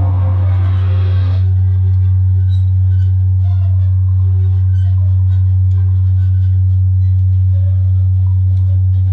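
Live electronic free improvisation: a loud, steady low drone holds throughout, with sparse short high blips and chirps over it. A noisier upper layer cuts off about a second and a half in.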